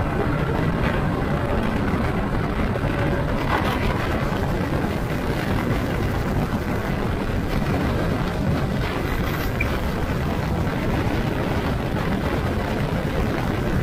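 A vehicle moving at speed: a steady rush of running and wind noise with no clear engine note and no sudden events.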